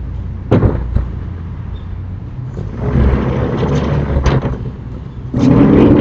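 Sliding storm shutters (amado) being worked: sharp knocks about half a second and a second in, a rumbling run along the rails in the middle, and a louder clatter near the end.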